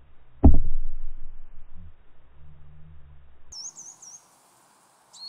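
Low, muffled underwater rumble picked up by a camera under water, with one sharp knock about half a second in that rings away over a second or so. After a cut, small birds chirp outdoors: three quick high notes, then a few more near the end.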